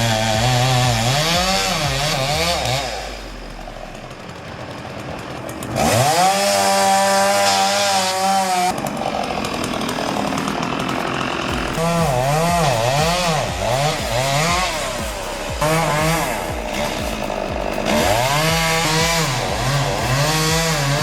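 Two-stroke chainsaw running, its engine revving up and down over and over. There is a quieter lull a few seconds in, then a steady stretch held at full throttle before the revving resumes.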